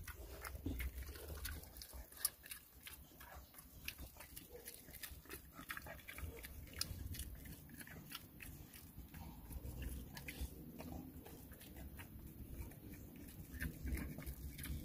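Dog chewing a dried pig-ear treat, a steady run of crunches and jaw clicks as it works the hard piece with its back teeth.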